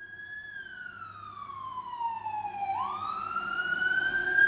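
Fire engine siren sounding a slow wail: the tone falls steadily for nearly three seconds, then turns and rises again, growing louder toward the end.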